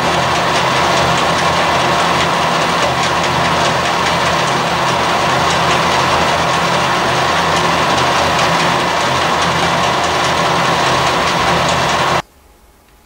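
Colchester metalworking lathe running steadily, with a constant mechanical drone and faint regular ticking, cutting off abruptly about twelve seconds in.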